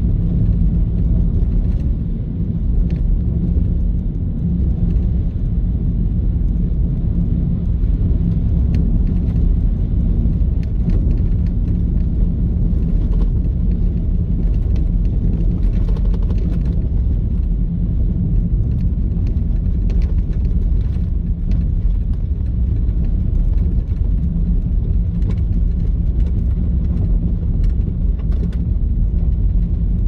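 Car driving with a steady low rumble of road and engine noise and a few faint clicks.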